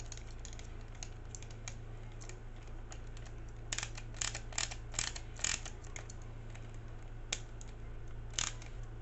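Small clicks and ticks of a screwdriver turning a screw into a plastic Tamiya RC gearbox housing, with the parts shifting in the hands. A quick run of sharper clicks comes about four seconds in, then two single clicks near the end.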